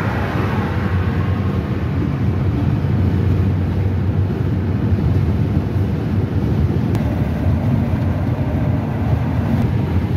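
Steady low rumble of a car at highway speed, road and tyre noise heard from inside the cabin.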